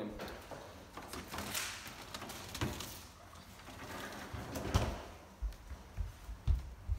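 Handling noise of a plastic food container being moved about, a sharp knock about five seconds in, then a run of low thumps of footsteps on a wooden floor.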